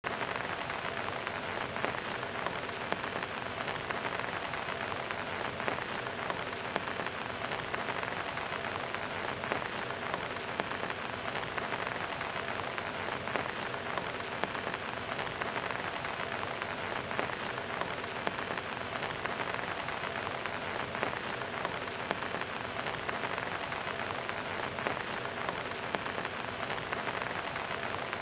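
Heavy rain falling steadily, a dense patter of drops splashing on hard surfaces.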